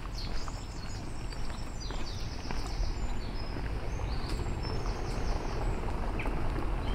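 Small birds chirping, with several quick runs of repeated high notes, over a steady low rumble of outdoor city ambience.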